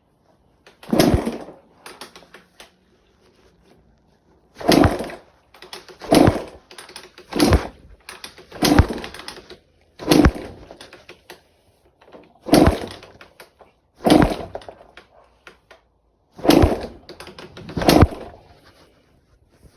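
Honda CR two-stroke dirt bike being kick-started with the choke on: about ten kicks, each a short loud clatter of the kick-starter turning the engine over, with no firing and no running between them. The engine won't start.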